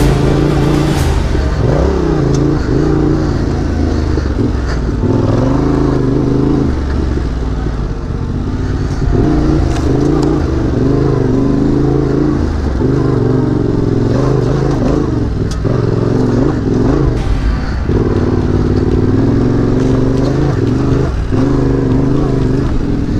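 Yamaha Ténéré 700's parallel-twin engine running on the move, its pitch rising and falling repeatedly with throttle and gear changes.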